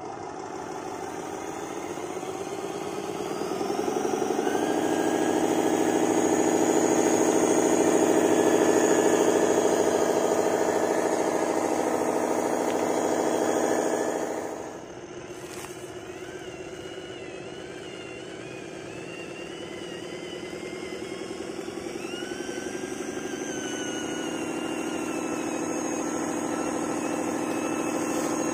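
Motor of a handmade RC truck running. Its pitch climbs about three to four seconds in and holds loud and steady. Midway it drops off sharply, then slowly winds up again.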